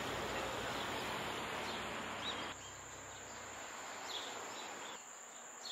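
Insects trilling in one steady, unbroken high-pitched tone, with a few faint short chirps over it. For the first two and a half seconds a broad rushing background noise sits underneath, then drops away suddenly.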